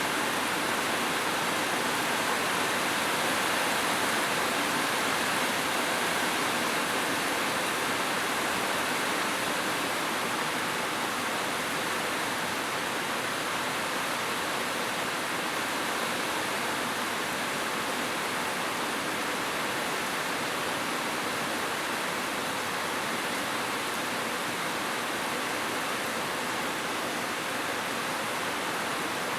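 Heavy rain falling steadily on a roof, an even, unbroken hiss with no thunder.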